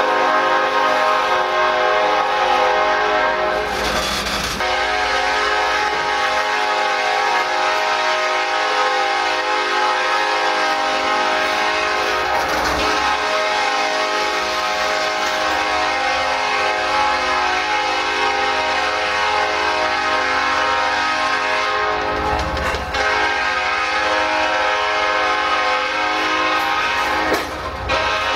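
CSX freight locomotive's air horn held in one long, unbroken blast, several notes sounding together as a steady chord: a continuous warning sounded through a grade crossing whose gate arm is broken off. The loudness dips briefly near the end.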